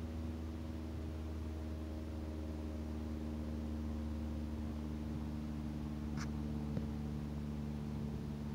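A steady low mechanical hum with several held tones over a faint hiss, and a single short click about six seconds in.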